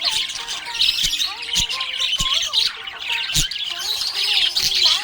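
Budgie warbling: a continuous, dense chatter of short chirps, squawks and clicks.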